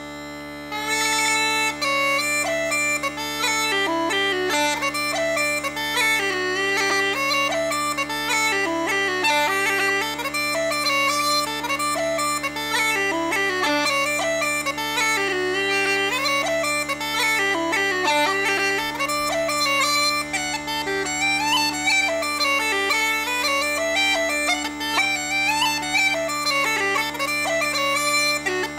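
Uilleann pipes playing: the drones hold a steady bass, and about a second in the chanter comes in with a fast jig melody over them.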